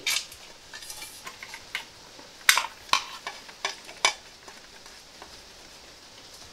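Small metal fixings and a metal exhaust heat shield clinking and tapping as they are handled and fitted against a motorcycle silencer: a series of light, separate clicks, the sharpest about two and a half, three and four seconds in.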